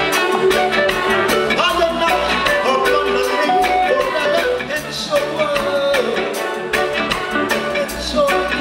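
Live reggae band playing with a steady beat while a man sings into a handheld microphone.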